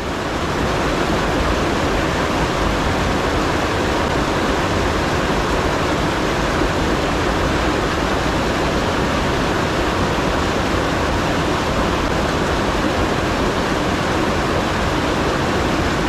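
Fast mountain headwater stream rushing over rocks: a loud, steady hiss of water with no break.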